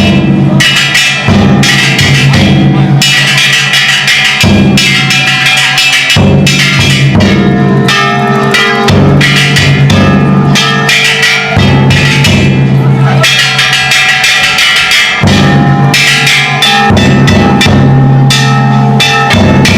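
Ishidori bayashi played on festival carts: a large taiko drum and hand-struck kane gongs beaten over and over. The clanging is loud and continuous, with a bright metallic ring.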